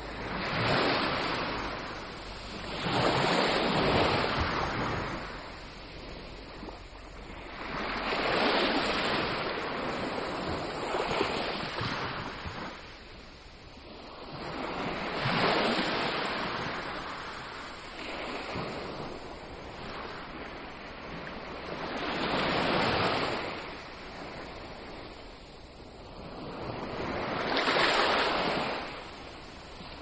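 Sea waves washing in, a rushing swell every five to seven seconds that builds and fades away.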